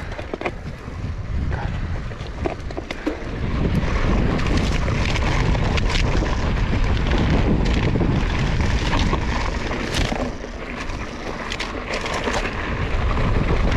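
Wind buffeting an action camera's microphone as a Commencal Meta HT hardtail mountain bike rides down a rough trail, with frequent clicks and knocks from the bike rattling over rocks and roots. It gets louder about three and a half seconds in and eases slightly near ten seconds.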